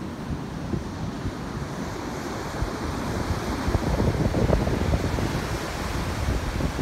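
Surf washing onto a sandy beach under wind buffeting the microphone, the wind rumble growing stronger in the second half.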